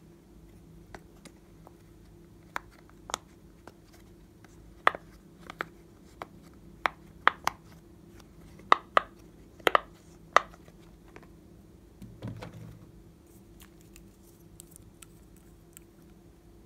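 Silicone pop-it fidget toy's bubbles being pressed through: a dozen or so sharp, separate pops at an uneven pace, loudest around the middle, followed by one duller bump about two-thirds of the way through.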